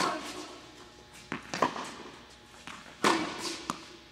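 Tennis rally on an indoor court: sharp racquet hits on the ball near the start and about three seconds in, each echoing through the hall, with fainter knocks of the ball bouncing between them.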